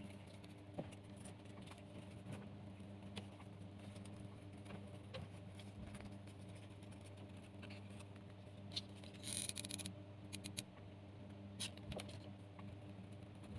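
Hands working jute twine against cardboard: faint scratching, rustling and small clicks, with a louder brushing rustle about nine seconds in. A steady low hum runs underneath.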